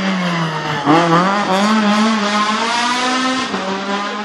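Rally car engine at high revs on a stage. About a second in its pitch drops and climbs again at a gear change, then holds high and steady.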